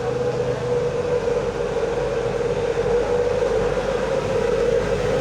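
Steady mechanical drone with a constant mid-pitched hum over a low rumble, unbroken throughout.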